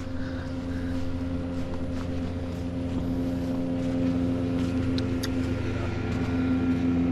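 A motor engine running steadily at one pitch, slowly getting louder, with a couple of light clicks about five seconds in.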